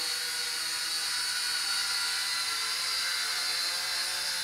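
Polaroid PL300 toy quadcopter hovering, its four small motors and propellers giving a steady high-pitched whine.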